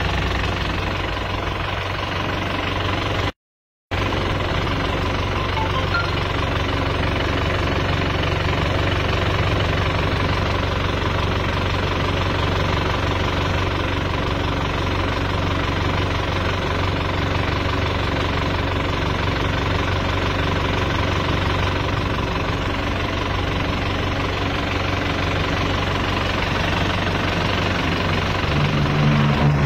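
Diesel car engine idling steadily while it runs on purging cleaning fluid fed from a hanging bottle, to flush out its fuel system. The sound cuts out completely for about half a second, about three seconds in.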